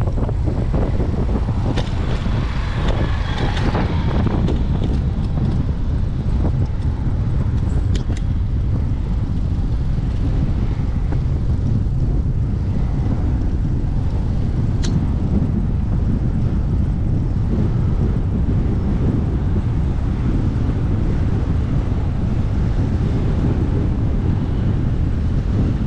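Steady wind rumble on the microphone of a camera riding along on a moving bicycle, with a brief higher-pitched sound a few seconds in.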